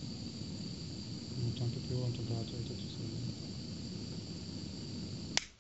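Heat gun running steadily, a blowing hiss with a constant high whine, switched off with a click near the end, after which the sound stops abruptly.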